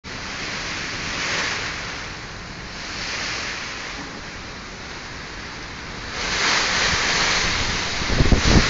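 Heavy rain and gusting wind of a nor'wester storm: a steady rush that swells in gusts and grows louder about six seconds in. Near the end, wind buffets the microphone with low, uneven thumps.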